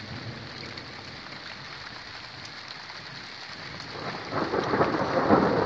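Steady rain falling, then about four seconds in the rumble of thunder from a close lightning strike builds up and grows loud.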